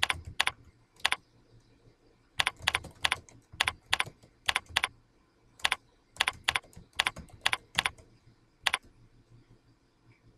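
Typing on a computer keyboard: irregular runs of keystroke clicks that stop near the end.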